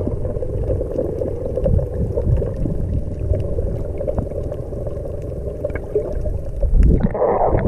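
Water rushing and splashing past a boat under way, with wind buffeting the microphone; the sound cuts off abruptly near the end.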